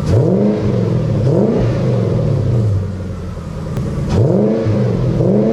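Supercharged 1UZ-FE 4.0-litre V8 of a Lexus GS400 being revved through 4.5-inch exhaust tips: four quick throttle blips in two pairs, each rising sharply and falling back to idle, with steady idling between the pairs.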